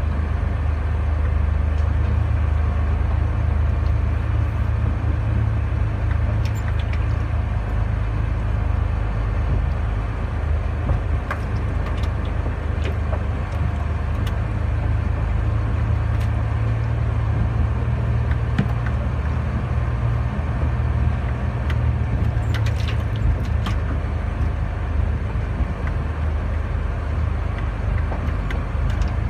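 Tractor-trailer truck's diesel engine running steadily at low speed, a deep drone heard from inside the cab, with a few faint clicks and rattles.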